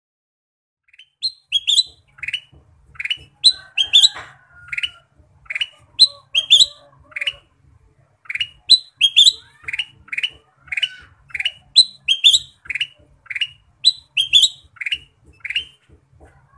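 Kutilang emas (ruby-throated bulbul) singing: a long run of short, sharp whistled notes at about two a second, high clipped notes alternating with lower down-slurred ones, starting about a second in.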